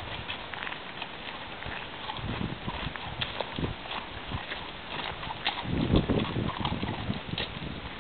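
Horse's hooves clip-clopping: a run of footfalls, with a brief low rumble about six seconds in.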